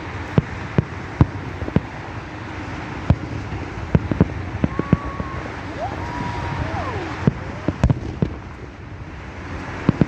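Fireworks going off: irregular sharp bangs and pops of varying loudness, sometimes several in a second, over a steady rush of traffic and wind. A few brief wavering whistles come in the middle.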